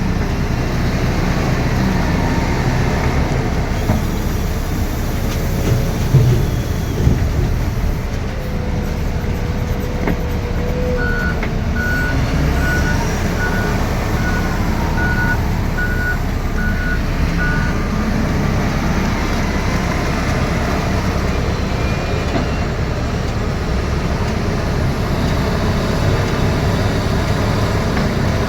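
Diesel engine of a heavy earthmoving machine running steadily under load. Partway through, its reversing alarm sounds about nine even beeps over some six seconds, then stops.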